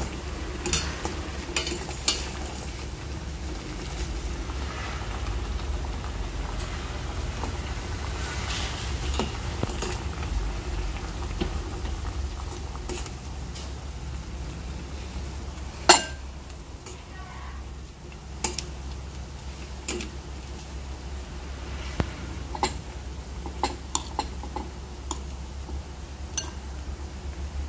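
Metal tongs clicking and scraping against a ceramic bowl and a steel pot as noodles are lifted into the bowl: scattered light clinks, one louder knock about sixteen seconds in, over a steady low hum.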